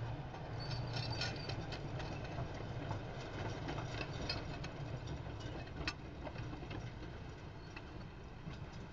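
Crawler tractor's diesel engine running with a steady low rumble as it pushes snow with its dozer blade, with scattered clicks and clanks from the tracks and blade.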